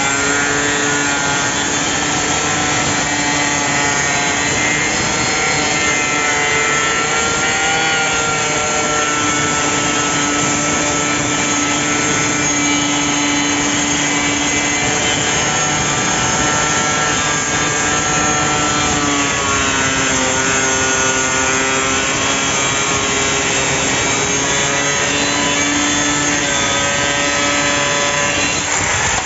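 Corded mini circular saw running and cutting through a sheet of plywood: a loud, steady motor whine with the blade cutting wood. Its pitch sags for a few seconds about two-thirds through as the blade takes more load, then recovers.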